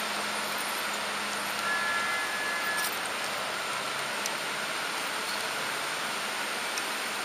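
HO-scale model train running along the track, a steady rolling hiss from its wheels and motor, with a brief faint whine about two seconds in and a few light ticks.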